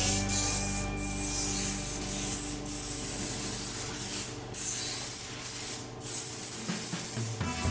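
Compressed-air paint spray gun hissing in stretches of a second or two, with brief breaks as the trigger is let off and pulled again.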